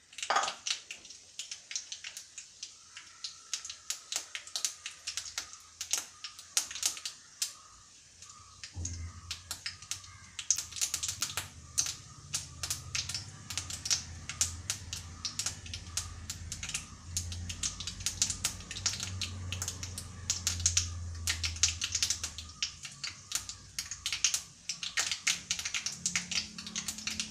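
Mustard seeds frying in hot coconut oil in a small pan, sizzling and spluttering with a rapid, irregular string of sharp pops and crackles: the tempering stage, with the seeds bursting in the oil.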